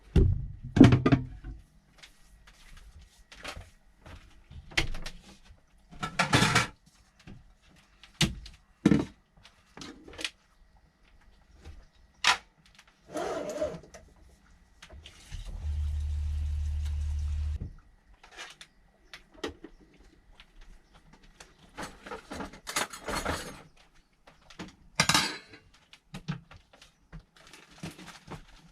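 Irregular knocks, thunks and clatter of things being handled in a small room, with a short steady machine hum lasting about two seconds midway.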